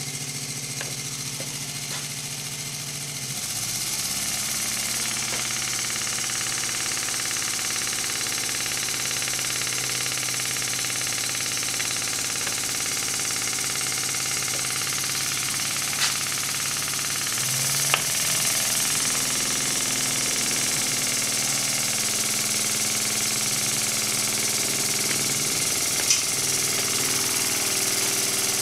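Home-made five-bellows rotary air engine of the Gnome type, the whole engine spinning on its shaft, running at about 850 to 1,070 rpm on air pressure and vacuum from a bellows pneumatic supply. It makes a steady, rapid mechanical clatter with a hum, steps up in level about three and a half seconds in, and gives a few sharp clicks.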